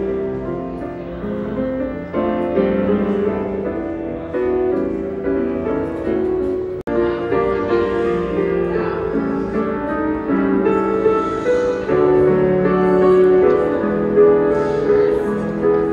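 Piano music playing, with a melody over chords; it cuts out for an instant about seven seconds in.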